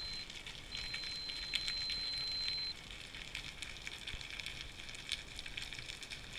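A dive watch alarm beeping underwater: a steady high tone that stops just after the start and sounds again for about two seconds. Underneath is a constant crackling hiss of underwater noise with scattered clicks.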